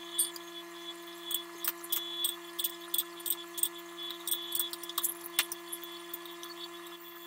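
Light, irregular metallic clinks and ticks from a hydraulic puller clamped on a seized, heated rear wheel hub, several a second with a slightly sharper click about five seconds in, over a steady faint hum.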